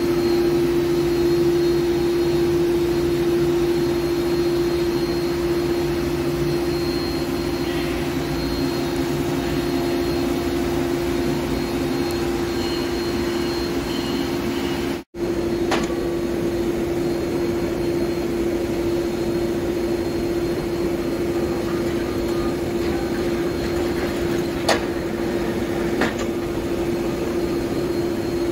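Heavy-duty Hankook CNC lathe running steadily: an even machine hum with one steady low tone, cutting out for an instant about halfway, and two sharp clicks near the end.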